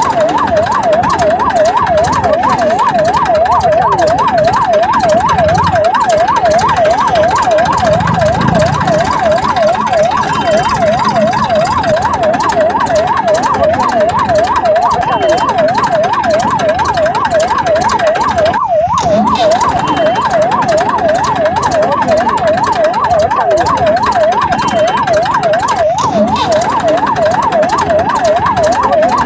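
Electronic siren in a fast yelp, its pitch sweeping up and down about three times a second. It breaks off for an instant twice.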